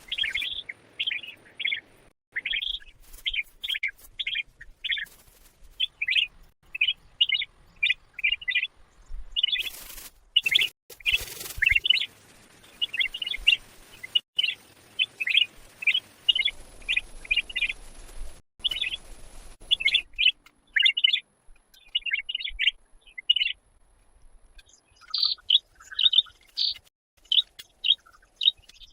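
A small bird chirping in a long run of short, quick notes, several a second, with brief pauses. A few short rustling or knocking sounds come about ten seconds in.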